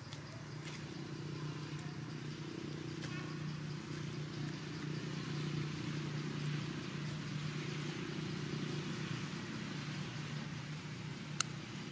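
A motor engine running steadily with a low, even hum, a little louder in the middle, and one sharp click near the end.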